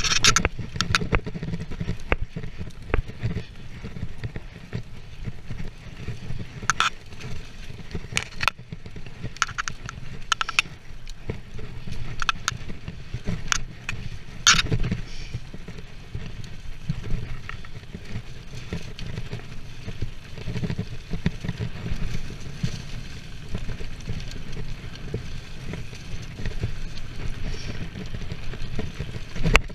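Scott mountain bike descending a dirt trail: tyres rolling over packed dirt and fallen leaves with a steady low rumble, and the bike rattling with sharp clicks and knocks over bumps, most often in the first half.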